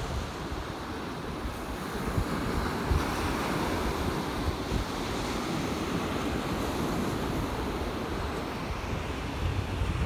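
Storm-driven surf breaking and washing up a sandy beach in a steady rush, with wind buffeting the microphone in an uneven low rumble.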